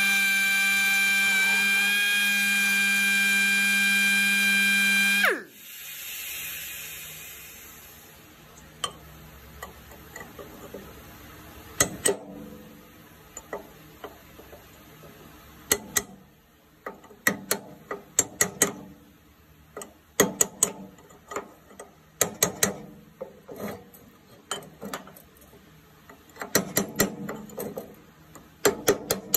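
Electric drill running at a steady pitch, used to cut the seized pivot bearings out of a mower deck's belt tensioner; it stops abruptly about five seconds in. After that come irregular sharp clicks and knocks.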